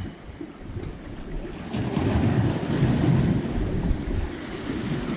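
Wind buffeting the microphone over waves washing on the shore, getting louder about two seconds in.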